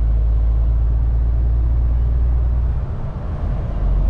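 Steady low rumble inside a truck's cab at motorway speed, engine and road noise together, dipping briefly about three seconds in.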